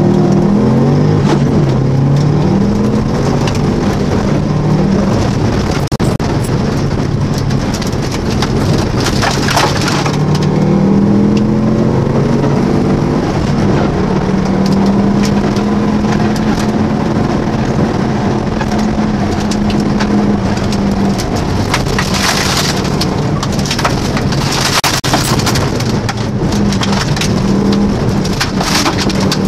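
Rally car engine climbing in pitch through the gears and then holding steady for several seconds, under heavy, noisy road and stone rattle. Clusters of sharp clattering impacts come in the second half.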